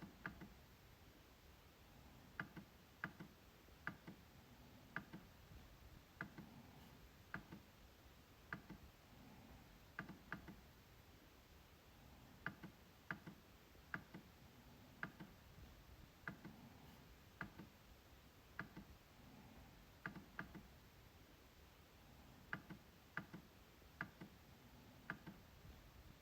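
MacBook trackpad clicking: short, sharp clicks at an uneven pace, often two in quick succession, with quiet gaps between.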